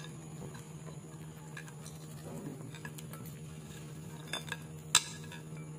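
Silicone spatula working thick cake batter in a mixing bowl, with light clicks as chopped dried fruit and nuts drop in and a sharper click about five seconds in. A steady low hum runs underneath.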